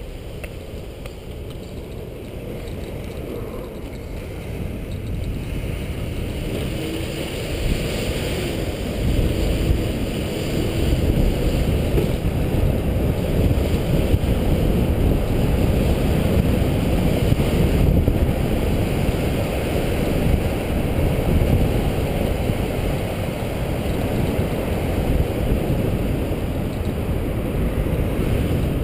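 Wind buffeting the microphone of a cyclist's camera as the bicycle rides along a city bike lane: a low, rumbling rush that grows over the first several seconds as the bike picks up speed from the intersection, then holds steady.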